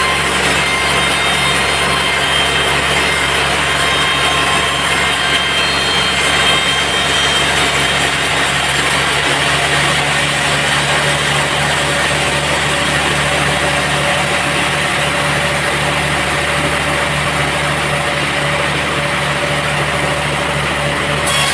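Sawmill band saw running and cutting a teak log, a steady machine hum under the hiss of the cut. The upper hiss weakens in the second half and comes back abruptly just before the end.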